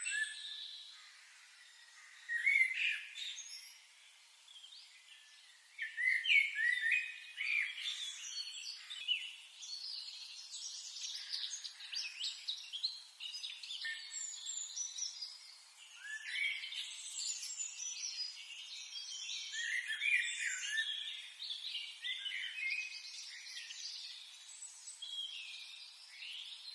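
Songbirds singing and chirping, several at once in a high-pitched chorus of short notes and warbles. The chorus is sparse for the first few seconds, then becomes dense and overlapping.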